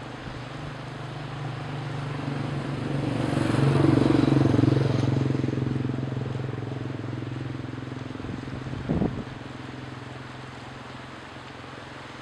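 An engine passing by: a steady motor drone that grows louder to a peak about four seconds in, then slowly fades away, with wind noise underneath.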